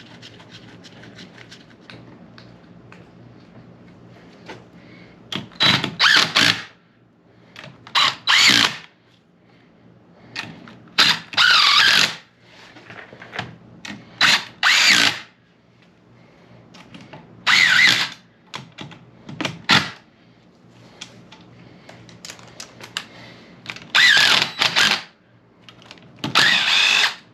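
Cordless drill/driver running bolts in during a rear differential reassembly, in about eight short bursts of a second or less with pauses between.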